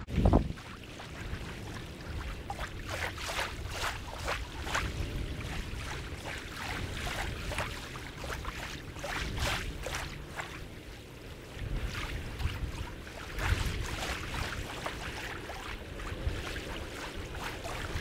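Small wind-driven waves lapping and splashing irregularly against a pebble lakeshore, with gusts of wind buffeting the microphone and a low thump right at the start.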